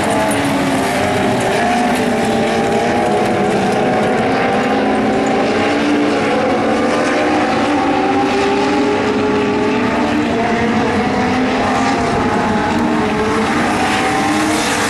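Several Legends race cars, powered by motorcycle engines, racing together at speed. Their overlapping engine notes rise and fall as the cars accelerate and lift through the turns.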